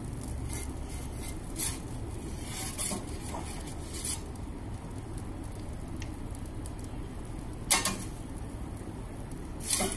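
Metal pizza turning peel scraping and clinking against the baking stone and oven mouth of an Ooni Koda 16 as the pizza is rotated, a few short sharp clinks, the loudest about three-quarters of the way through. Under it the oven's gas flame makes a steady low rush.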